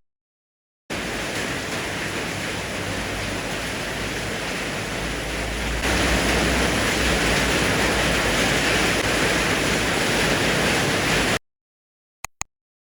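Heavy rain falling steadily. It starts and stops abruptly and gets louder about five seconds in. Two brief clicks follow near the end.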